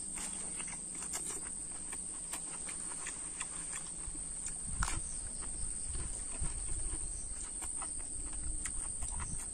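Close-up mouth sounds of a man chewing a mouthful of food, a run of small wet clicks and lip smacks, over a steady high-pitched insect drone.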